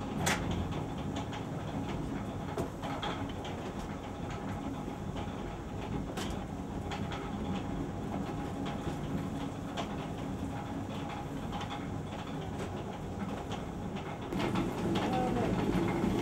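Steady mechanical rumble of a working stone flour mill, with a few sharp metal clinks from a hanging steelyard scale being handled. The rumble grows louder about fourteen seconds in.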